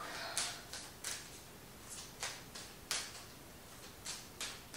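Tarot cards being handled: about nine short, sharp clicks and snaps at irregular intervals.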